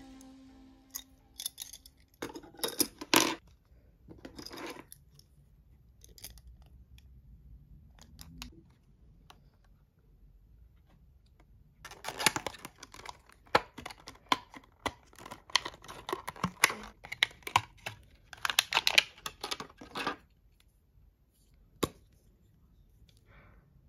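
Clear plastic and card packaging handled and opened by hand: bursts of crinkling and tearing, busiest in the middle of the stretch, then a single sharp click near the end.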